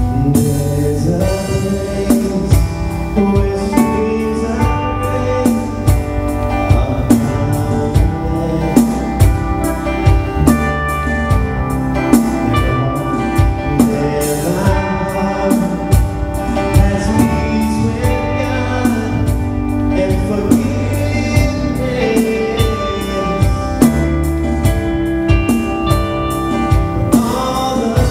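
Live worship band playing a song: strummed acoustic guitars, bass guitar and a steady drum-kit beat, with a voice singing the melody.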